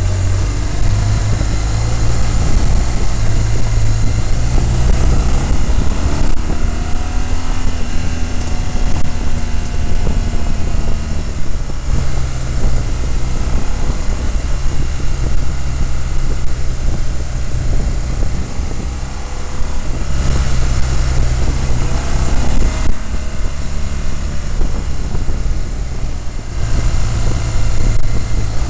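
A vehicle's engine runs steadily as it drives along a dirt road, with a deep low hum throughout. Its revs rise and fall a few times about six to twelve seconds in.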